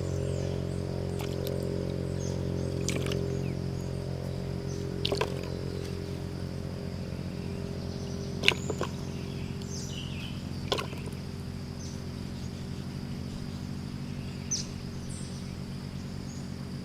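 Outdoor ambience: a steady low hum with a faint high insect-like chirring over it, broken by a few short sharp clicks about 3, 5, 8.5, 11 and 14.5 seconds in.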